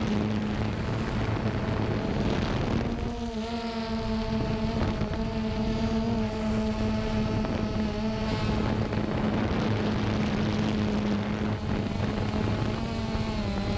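Xiro Xplorer G quadcopter's motors and propellers whirring steadily in flight. The pitch shifts briefly about three seconds in and again near the end.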